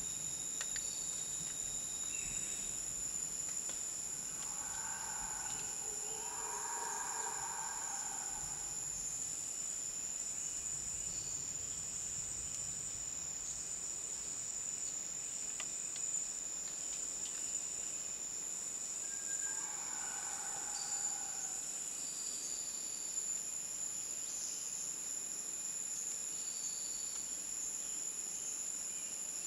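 Rainforest insect chorus: a steady high-pitched drone, with another insect calling just above it in short, regular pulses. A fainter, lower sound comes twice, about five and twenty seconds in.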